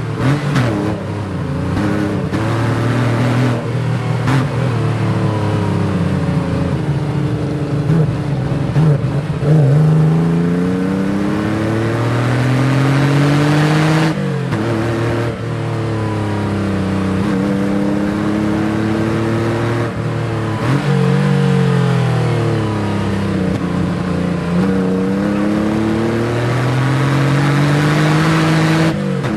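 Porsche 911's flat-six engine driven hard, its pitch climbing and then dropping again and again as it revs up and shifts through the gears.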